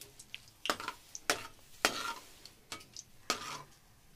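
Slotted metal spatula scraping and knocking against a metal frying pan as it stirs and breaks up lumps of melting ghee, about five strokes.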